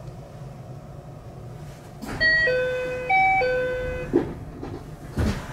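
Door-closing chime of a 521 series electric train: a two-note falling chime played twice. It is followed by two short thuds as the doors shut, over the low hum of the stationary train.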